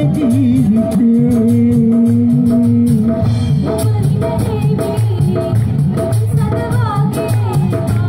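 Live band playing a song with singing: drum kit, keyboard and guitars keep a steady beat under the vocal line, with one long held note about a second in.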